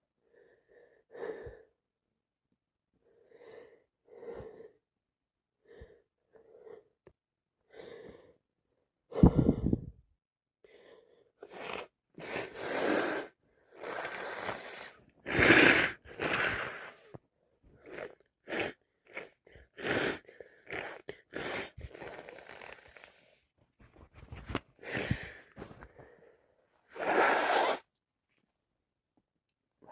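A woman with a cold sneezing over and over: short, quiet sniffs and catching breaths build up, then a loud wet sneeze about nine seconds in, followed by a dense run of sneezes, sniffs and gasping breaths.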